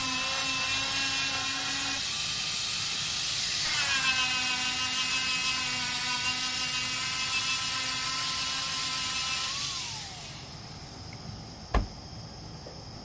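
Electric angle grinder with an abrasive disc grinding the paint off a steel car door down to bare metal: a steady high whine that winds down with falling pitch about ten seconds in. Near the end, one sharp clack as a magnetic ground clamp is set on the door panel.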